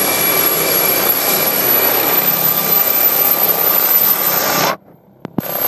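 MD 902 Explorer air ambulance helicopter running on the ground, a loud, steady rushing noise of the turbines and rotor wash with a faint whine. The sound drops out for about half a second near the end.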